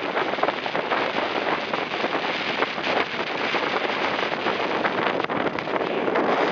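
Wind buffeting the microphone, mixed with water rushing past the hull of a catamaran under sail at speed.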